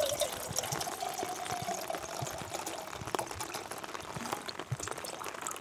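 Water pouring, with a faint steady ringing note that fades out about two and a half seconds in. Many small ticks of raindrops hit the tarp overhead throughout.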